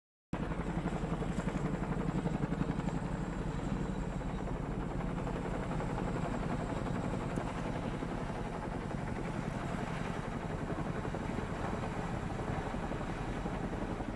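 Boeing CH-47 Chinook tandem-rotor helicopter in flight: a steady fast rotor chop, cutting in suddenly a moment after the start.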